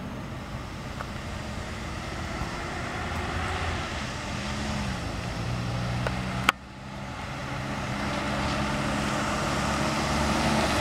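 Ford Ranger pickup's engine running at low speed with road noise as the truck comes closer, getting gradually louder; its pitch dips briefly a little over four seconds in. A sharp click and a short drop in the sound come about six and a half seconds in.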